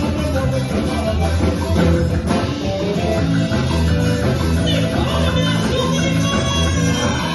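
A band playing a song, with a strong bass line moving note by note under guitar.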